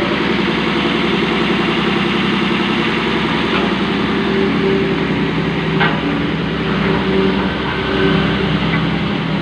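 Road roller's engine running steadily, its note wavering slightly, with one short sharp click a little past the middle.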